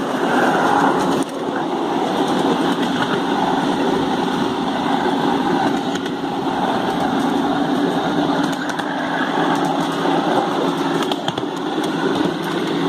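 Ride-on miniature railway train, pulled by a scaled-down EMD GP30 locomotive, running along its track. Heard from a passenger seat as a steady, continuous rumble.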